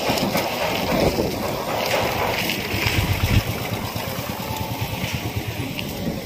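Outdoor street noise: wind rumbling on the microphone and passing traffic, with a stronger burst of low rumble about three seconds in.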